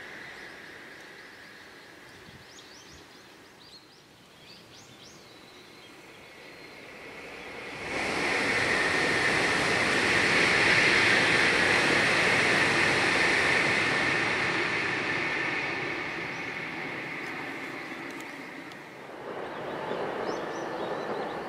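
Shinkansen bullet train running past on a viaduct: a loud, even rush with a strong hiss that sets in suddenly about eight seconds in and fades away over several seconds. Before it, a few faint bird chirps; near the end, another rumble rises.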